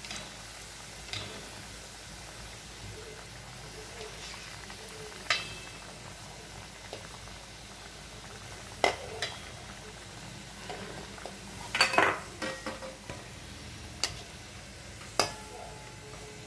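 Kachoris deep-frying in oil in a steel kadai, a steady sizzle, with a perforated steel skimmer clinking and scraping against the pan a handful of times as they are turned. The loudest clatter comes about twelve seconds in.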